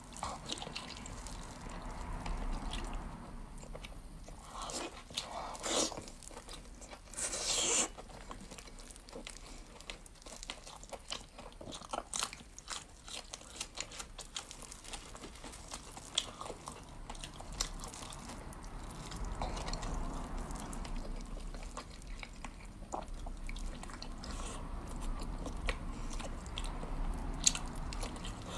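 Close-miked eating: biting and chewing food with crunches and many short wet clicks, with a louder noisy burst of a few seconds near the start.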